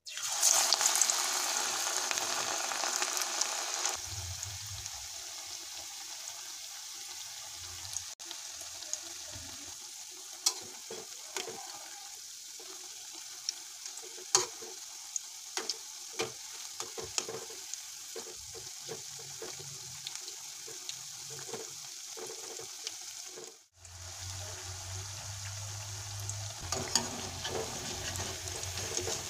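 Besan pakora batter deep-frying in hot oil: a loud hiss as the batter goes in, settling into a steady sizzle with scattered crackles and pops.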